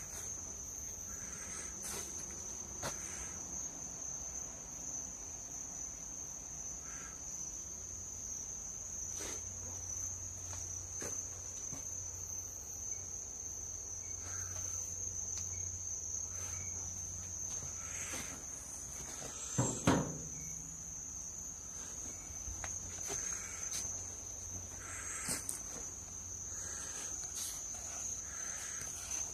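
Night insects, crickets, trilling in one steady high unbroken note, with scattered faint clicks and a single louder knock about twenty seconds in.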